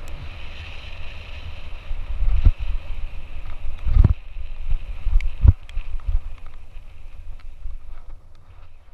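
Wind buffeting the microphone of an action camera on a mountain bike riding a rough dirt track, with rattles and clicks as the bike jolts over the ground and three heavier knocks about a second and a half apart. The sound fades out near the end.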